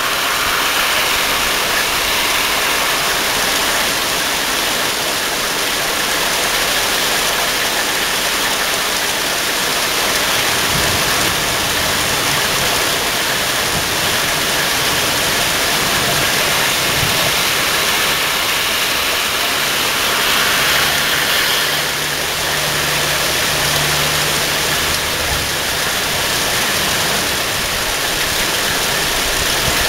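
Heavy rain pouring steadily onto trees and the ground, a dense, even hiss, with a faint low hum underneath for a few seconds past the middle.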